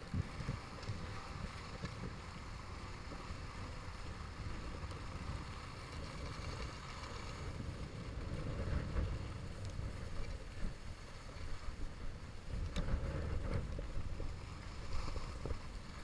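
Wind buffeting the microphone of a skier's body-worn camera during a downhill run, a low rumble that swells and dips, with the skis hissing over groomed snow.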